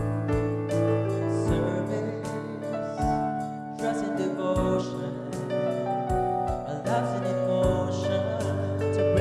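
A hymn: an instrumental passage of sustained accompaniment, then a small mixed vocal group begins singing the verse partway through.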